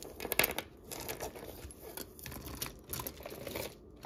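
Jewelry being handled and sorted out of a bag: crinkling and rustling with irregular small clicks and taps, the loudest about half a second in.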